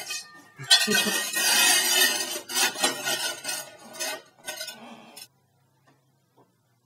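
Metallic clanking and rattling of a steel axle stand and trolley jack being set under a raised car, stopping about five seconds in.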